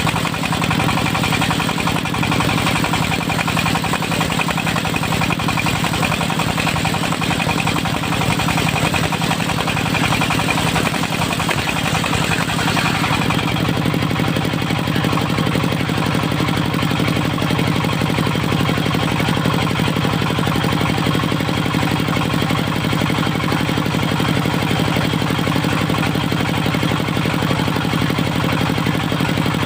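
Diesel engine of a mobile circular sawmill running steadily. A higher hissing whine rides over it and stops about halfway through, where the engine note shifts slightly.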